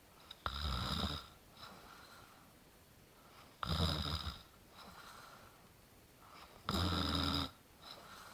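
A person snoring: three snores about three seconds apart, each lasting under a second, with fainter breaths between them.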